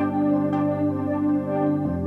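Background music: slow ambient instrumental of long held chords, moving to a new chord near the end.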